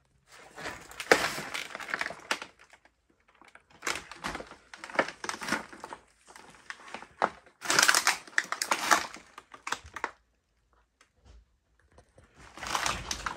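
Trash and debris crunching and crackling underfoot as someone walks through a hoarder-filled room, in four bursts of about two seconds each with short pauses between.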